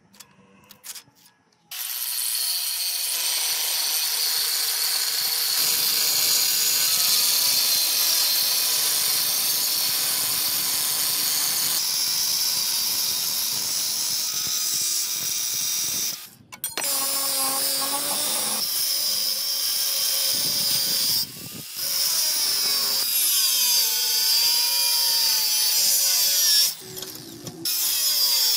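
Angle grinder with an abrasive cut-off disc cutting through a rusted steel circular saw blade: a loud, steady, high-pitched grinding that starts about two seconds in and drops out briefly three times.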